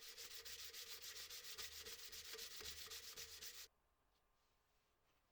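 Saw cutting a slot for the wedge into the top of a wooden hammer handle: a fast, steady rasping of strokes that stops abruptly about three and a half seconds in.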